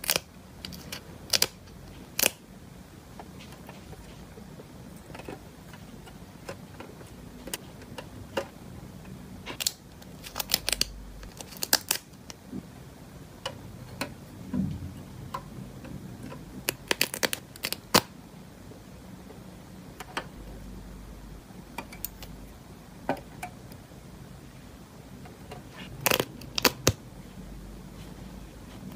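Sharp clicks of metal tweezers tapping on a tin box lid and handling stickers, scattered and now and then in quick clusters.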